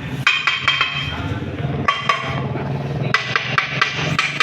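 Runs of quick taps and knocks from hand tools striking and clinking against motorcycle engine parts.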